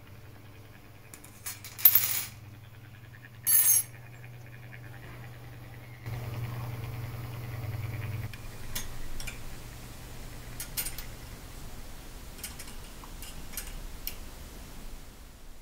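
A steel clock mainspring clattering down onto the workbench twice, about a second and a half apart, each time with a bright metallic ring. A few faint light clicks follow later.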